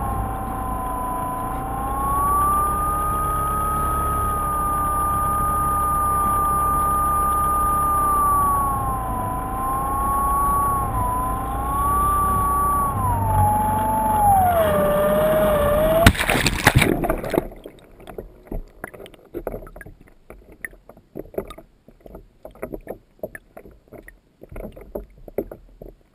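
The brushless electric motor and pusher propeller of a Multiplex Easy Star RC plane whine steadily in flight over a low rushing noise, the pitch wavering and then falling. About sixteen seconds in there is a loud splash as the plane lands on the water, followed by quiet, irregular slaps and gurgles of water as it floats.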